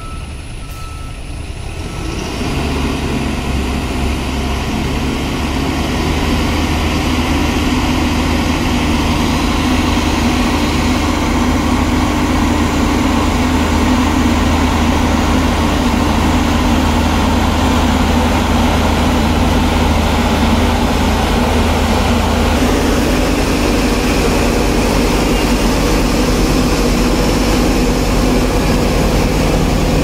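Diesel engine of an Escorts F17 pick-and-carry crane running as the crane moves closer. It grows louder over the first few seconds, then holds a steady note.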